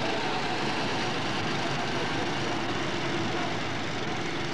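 Small go-kart engines running as a pack of karts drives past on a track, a steady engine drone.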